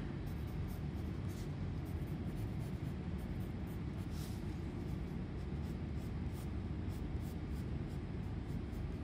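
Pencil scratching on sketchbook paper in short strokes, one firmer stroke about four seconds in, over a steady low background rumble.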